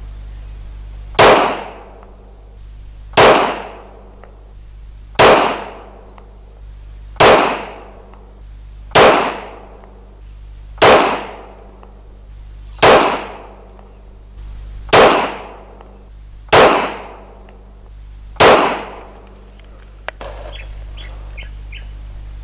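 Glock 17A Gen 4 9mm pistol fired ten times in slow aimed fire, one sharp shot about every two seconds, each with a short echo trailing off. A faint click and a few light ticks follow the last shot.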